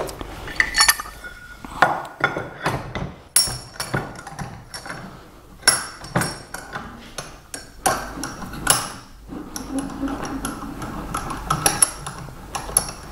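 Irregular metal clanks, clicks and short rings from a small Craftsman bench vise being put back together and handled: the cast-iron movable jaw going back into the body and the handle being turned, its sliding bar clinking.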